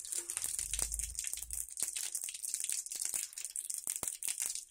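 Mustard seeds, cumin, fenugreek and chana dal sizzling and crackling in hot oil, a dense run of small pops over a steady hiss: the spices are tempering in oil hot enough for the mustard seeds to pop.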